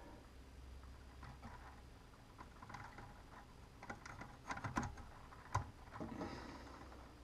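Faint scattered clicks and ticks over a steady low hum, from probing inside an opened Kenwood TS-700SP transceiver. The clicks bunch together in the second half, the loudest a little past five seconds in.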